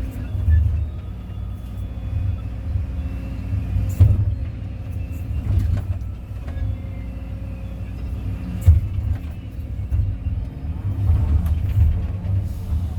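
Kobelco excavator's diesel engine running with a steady low rumble, with a few sharp knocks from the machine at work, the loudest about four seconds in and near the end of the second third.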